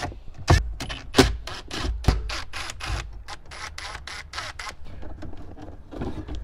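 Cordless drill-driver run in short bursts, backing Phillips screws out of a car dash, with a few louder knocks in the first two seconds. It goes quieter near the end as plastic trim is handled.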